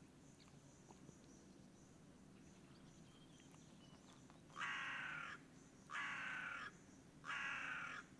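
A bird calling three times, starting about halfway through, each call a loud drawn-out note under a second long with about half a second between calls.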